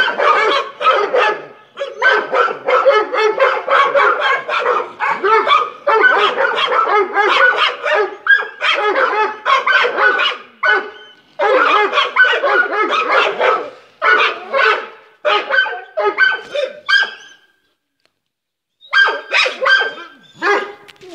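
Dog barking rapidly and without let-up, bark after bark, stopping for a second or so near the end before starting again.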